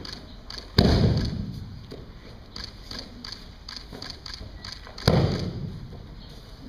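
Two loud thuds of an aikido partner's body slapping onto the mat in breakfalls after being thrown, about four seconds apart. Each thud rings on with a long echo, with softer taps of feet on the mat between them.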